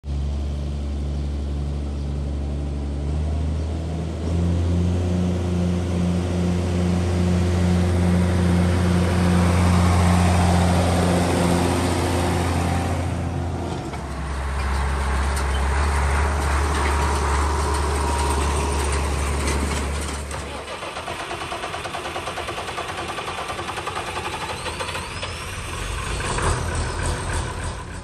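Tractor engines running in a run of short shots: a White 2-135 tractor's engine running steadily, then an Oliver 1650 tractor's engine running in quick even firing pulses. The engine note changes abruptly about 4, 14 and 20 seconds in.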